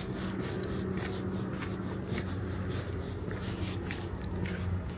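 Footsteps of someone walking, light irregular steps about twice a second, over a steady low hum.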